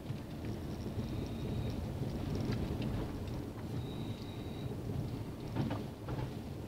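Low rumble of a vehicle moving slowly along a narrow street. A faint high whistle comes and goes, and a few quick rattles or clicks come about five and a half seconds in.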